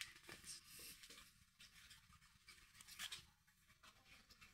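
Near silence: faint outdoor ambience with a few brief, faint rustles or clicks.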